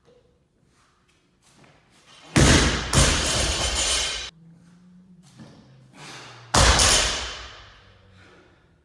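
Loaded barbell dropped onto a lifting platform: heavy thuds of the plates hitting the floor twice in quick succession about two and a half seconds in, then once more about four seconds later, each ringing on for a second or so.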